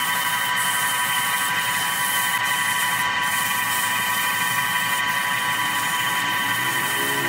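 Wood lathe running with sandpaper held against the spinning wooden vase blank: a steady sanding hiss with a constant high motor whine. Music comes in faintly near the end.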